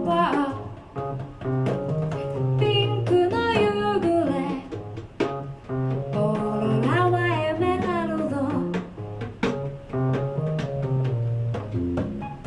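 A song played live by a singer with piano and drums: sung phrases about a second in, around three to four seconds in and around seven to eight seconds in, over sustained low piano notes and light cymbal ticks.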